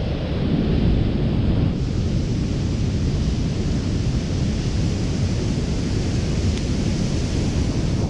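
Strong wind buffeting the microphone over the steady roar of heavy storm surf breaking on the shore; the hiss of the surf grows louder about two seconds in.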